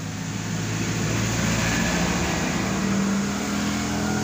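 A motor vehicle engine running, getting louder over the first second, with its pitch stepping up about halfway through.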